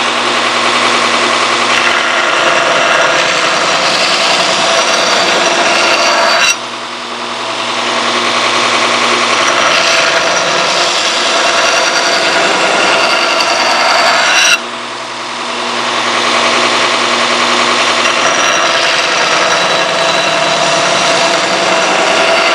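Power grinder running steadily while grinding the flat sides of a steel knife blank, a continuous harsh grinding noise over the motor's hum. Twice, about a third and about two thirds of the way through, the grinding noise drops suddenly and then builds back up as the blade is lifted off and pressed back on, while the motor keeps running.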